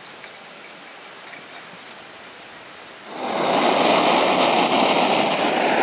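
Water trickling faintly from a plastic bottle into a stainless steel pot. About three seconds in, a canister-gas backpacking stove's burner comes on under the pot and runs with a loud, steady hiss.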